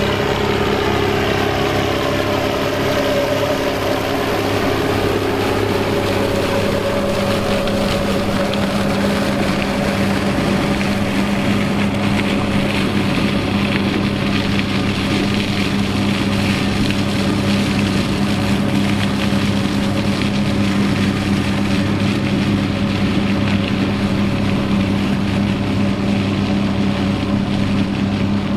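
Fiat 800 tractor's turbocharged diesel engine running steadily under load, with a steady rushing noise over it. The engine's pitch drops slightly in the first few seconds, then holds.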